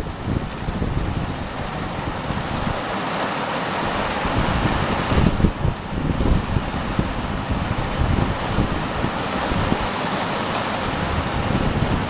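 Heavy rain falling in a steady hiss, with gusts of wind rumbling on the microphone. The hiss grows brighter and stronger about five seconds in.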